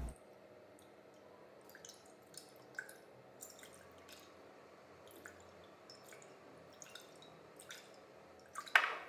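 Liquid being swirled in a glass beaker on a lab bench: faint, scattered drip-like ticks and small clicks of glass, with one louder knock near the end.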